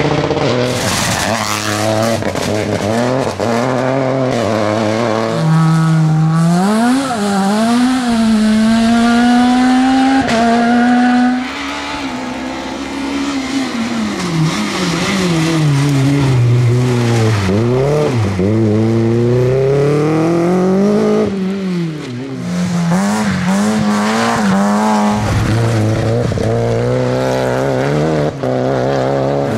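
Rally car engines at high revs on a stage. The pitch climbs in rising sweeps and drops sharply at each gear change or lift, and falls away and climbs again as cars pass.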